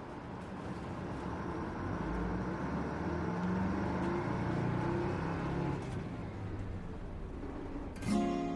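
Bus engine and road noise heard from inside the cabin, swelling over the first few seconds as the bus pulls away and then running steadily. Near the end an acoustic guitar strum comes in.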